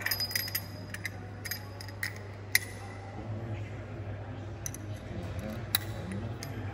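Sharp metallic clicks and clinks of a multi-axis trainer's four-point safety harness buckles and fittings being fastened, about eight in all, the loudest about two and a half seconds in. A steady low hum runs underneath.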